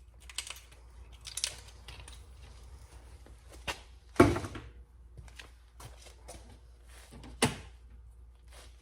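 Hands working on a car door's interior during reassembly: light rustling and scattered clicks, with a sharp knock about four seconds in and another about seven and a half seconds in.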